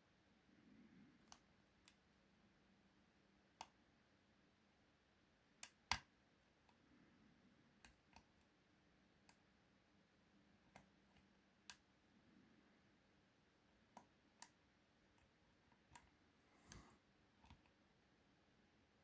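Lock pick and tension wrench working the pins of a 5-pin euro cylinder lock under heavy tension. There are scattered sharp metallic clicks at irregular intervals, about fifteen in all, the loudest about six seconds in.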